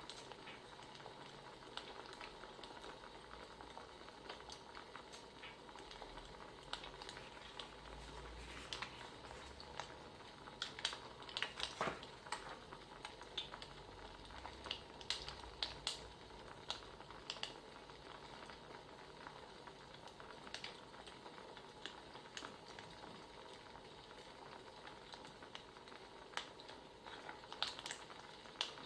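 Wood fire crackling: irregular snaps and pops, thicker in places, over a soft steady hiss.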